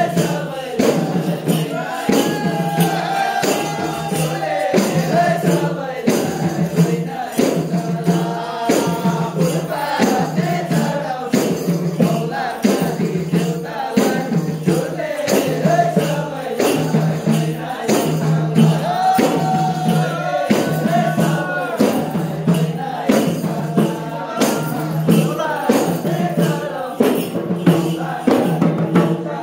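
Live Nepali folk music: several voices singing a melody together over a steady beat of hand drums and jingling percussion.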